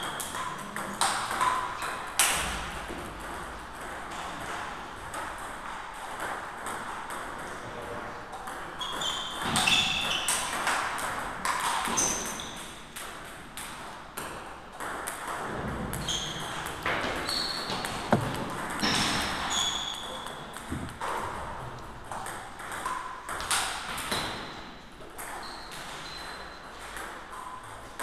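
Table tennis balls clicking off paddles and tables in irregular runs of sharp knocks from play at this and neighbouring tables, some with a short high ring.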